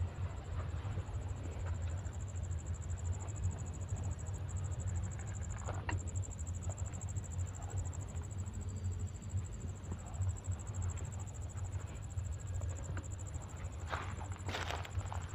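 Insects chirring in a steady, high-pitched drone over a low steady rumble, with a few short scuffs and clicks, the clearest near the end.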